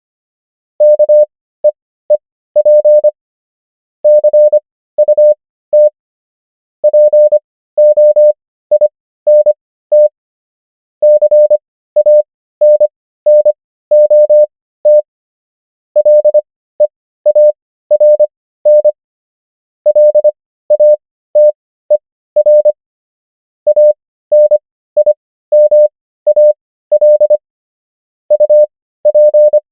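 Morse code practice tone: a single steady beep keyed on and off in dots and dashes, spelling common English words at a 25 wpm character speed with Farnsworth spacing stretching the gaps between words to 15 wpm.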